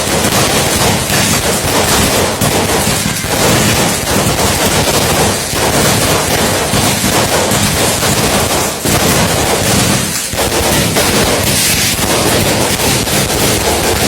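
A long string of firecrackers going off in a dense, rapid crackle of loud bangs, with a few brief lulls.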